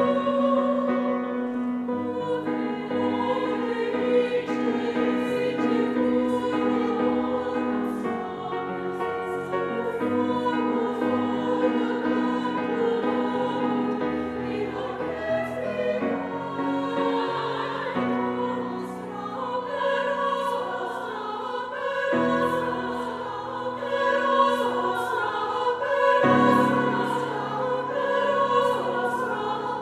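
Women's choir singing held chords, moving to a new chord every couple of seconds.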